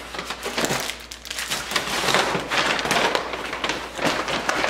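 Paper grocery bag rustling and crinkling as items are put into it and the bag is handled, an irregular run of crackles.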